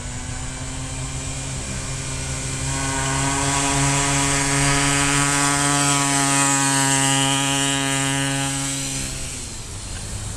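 Small 47cc two-stroke engine of a home-built motorized skateboard running at steady throttle as the board rides past, growing louder as it comes near and fading as it rides away, its pitch dropping slightly as it passes.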